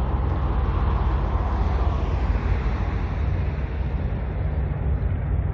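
Road traffic going by on a busy street: a steady rumble of engines and tyres, with one vehicle passing that swells and fades over the first couple of seconds.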